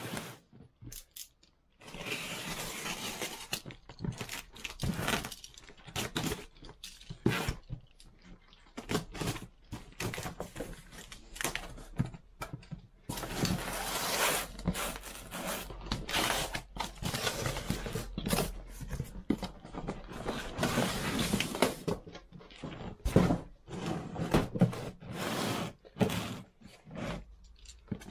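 Cardboard box being torn open by hand: flaps and packing tape ripping, and cardboard scraping and rustling in irregular bursts.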